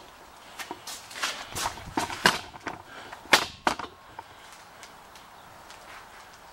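Footsteps on a concrete floor, a run of sharp, uneven scuffs and knocks close by for about four seconds, then stopping.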